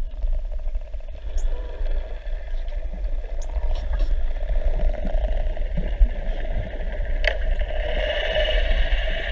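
Dolphins whistling underwater: several short, high whistles that sweep upward, one dipping and then rising, over a steady low rumbling drone, with a single sharp click about seven seconds in.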